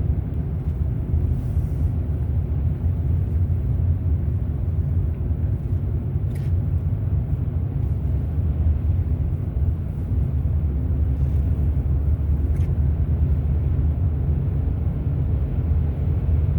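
Steady low rumble of car engine and tyre noise heard from inside the cabin while driving, with a couple of faint clicks.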